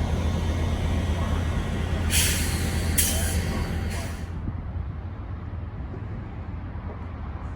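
Large diesel vehicle idling with a steady low hum. Two short hisses of air-brake release come about two and three seconds in, then the sound fades somewhat.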